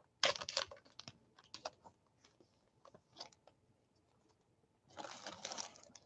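Trading-card pack wrapper crackling and crinkling as it is torn open and handled, in short crackly bursts about a second in and again near the end, with scattered small clicks between.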